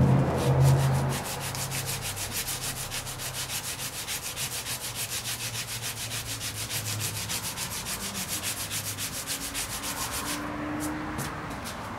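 220-grit sandpaper on a hand sanding block rubbed back and forth over cured gelcoat on a fiberglass hull, a fast, even rasping of about four to five strokes a second. This is the first, coarse sanding that shapes the raised repair. The strokes stop abruptly about a second and a half before the end, and a few lighter ones follow.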